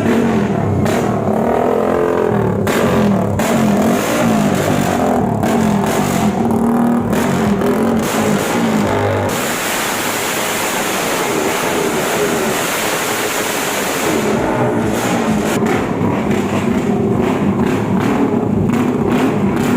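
Motorcycle engine with a loud aftermarket exhaust being revved over and over, its pitch rising and falling, with a stretch of sustained hard revving from about nine to fourteen seconds in.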